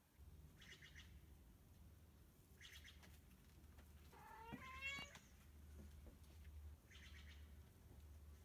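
Faint, short high-pitched animal calls, repeated every two seconds or so, with a longer call rising in pitch about four and a half seconds in. A low steady rumble lies underneath.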